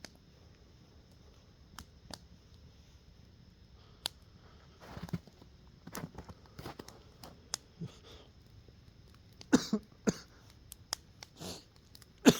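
A man coughing a few times in short bursts, the loudest two near the end, amid scattered small clicks and handling knocks.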